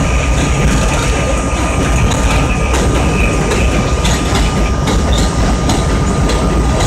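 R32 subway train running at speed on elevated track, heard from inside the car: a steady low rumble with irregular clicks of the wheels over the rails and a thin steady whine.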